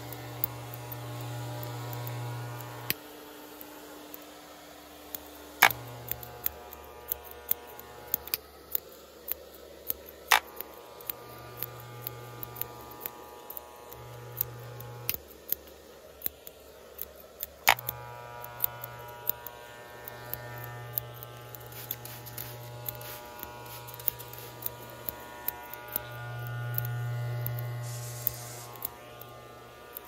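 Electric hair clippers buzzing in stretches of a second or a few seconds, switching on and off repeatedly, loudest near the end. Many sharp clicks are scattered throughout.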